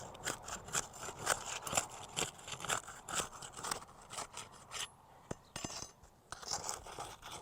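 Metal roofing flat bar scraping and rasping under asphalt shingles in short, irregular strokes, working the shingles loose from their seal strips. The strokes pause after about four seconds, with a couple of sharp clicks, and start again near the end.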